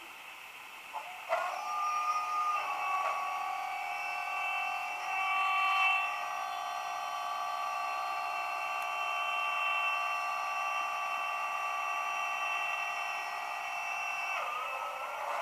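Cold start of a DB class 216 diesel locomotive's MB 16V652 TB10 engine, pieced together from recordings: a click about a second in, then the engine catches and settles into a steady idle. Near the end the pitch starts to rise as it begins to rev up.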